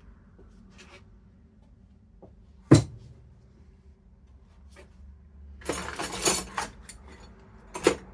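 Metal hand tools being lifted out of a tool chest and set down on a workbench: a single sharp clank a little before the middle, then a short spell of clattering and clinking, and another knock near the end.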